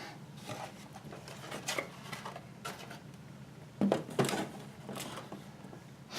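Small 3D-printed plastic scale accessories being handled on a workbench: light scattered clicks and taps, with two louder knocks about four seconds in, over a steady low room hum.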